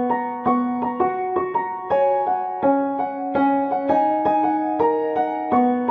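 Piano music: a melody of struck notes, about two or three a second, over lower held notes.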